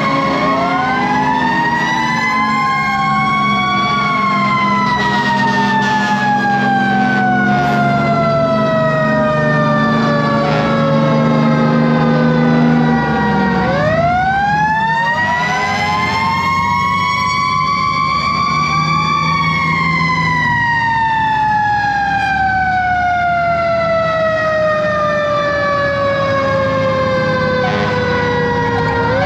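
Fire engine sirens winding up twice, each time rising for a few seconds and then falling slowly for about ten seconds, with several sirens overlapping at different pitches. Underneath, the fire engine's 8V71 Detroit Diesel runs steadily.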